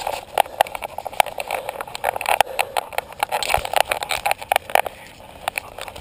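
Irregular knocks, clicks and rubbing noise right at a camera mounted on a dog's harness, as the harness and camera are jostled and handled.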